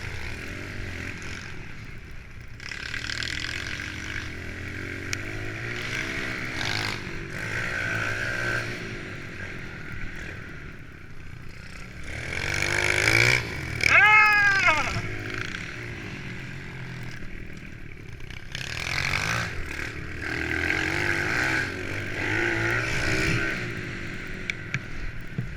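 Several small single-cylinder four-stroke pit bikes (Kawasaki KLX110s) running and revving up and down as they ride laps. The loudest moment is one bike revving hard close by, about halfway through.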